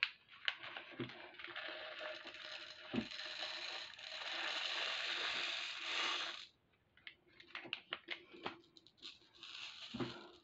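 Small two-hole glass beads pouring from a plastic bag into a clear plastic storage tube: a continuous rattling hiss for about five seconds that stops suddenly, then scattered clicks as the last beads are tipped in and settle.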